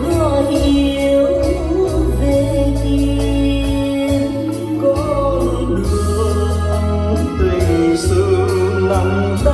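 A song with a singing voice over a steady bass line and beat, played loud through a stage line-array speaker system with subwoofers.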